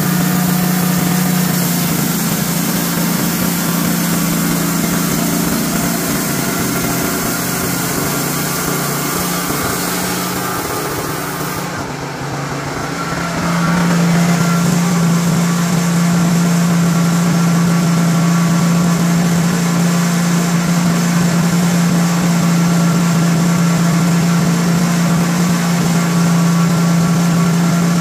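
Honda gasoline engine of a Wood-Mizer LT40 band sawmill running steadily under load as the band blade saws a white cedar log. The engine note sags and wavers a little before halfway, then holds steady and somewhat louder.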